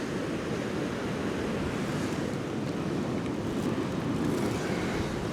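Sea swell washing against the pier barrier, a steady rushing surf noise, with wind buffeting the microphone.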